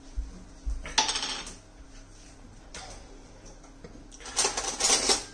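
Rummaging through kitchen shelves, moving jars and containers about: two dull knocks in the first second, a short run of clattering and clinking about a second in, and a longer, louder run of clinking near the end.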